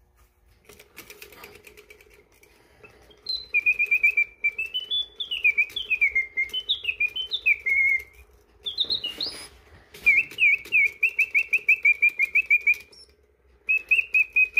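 Karl Griesbaum singing bird automaton in a round cage, its bellows-driven whistle warbling birdsong in phrases of rapid chirps and trills, stopping and starting again twice. The clockwork mechanism whirs steadily underneath.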